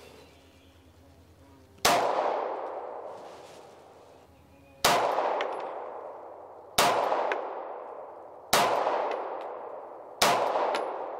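Five shots from an FN FNS9 9mm pistol, slow aimed fire spaced about one and a half to three seconds apart, each with a long echo fading away behind it.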